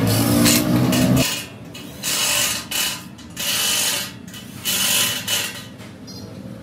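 Electric impact wrench tightening bolts into a steel scale frame: a hammering run of just over a second, then several short bursts with pauses between them.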